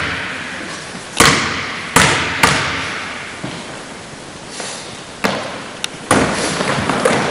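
Basketball bouncing on a hardwood gym floor: a handful of sharp thuds at uneven spacing, each ringing out in the hall's echo.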